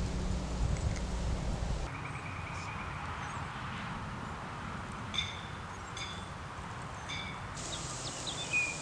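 Wind buffeting the microphone for about the first two seconds, then quiet outdoor ambience with birds giving a few short, spaced chirps and a falling chirp near the end.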